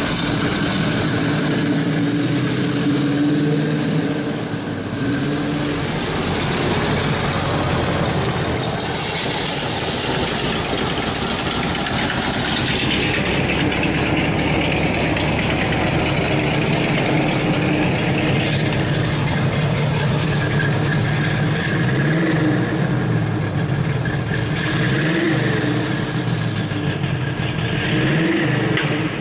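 1968 Chevrolet Camaro SS V8 running through its dual exhaust, idling steadily, then revved briefly three times in the last several seconds, each rev rising and falling back to idle.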